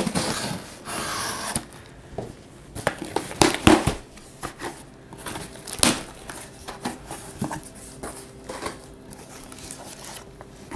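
Retractable utility knife slicing through packing tape on a cardboard box, a scraping hiss for about a second and a half, followed by the cardboard flaps being pulled open and handled: rustles and sharp knocks, loudest about three to four seconds in, then lighter scattered rustling.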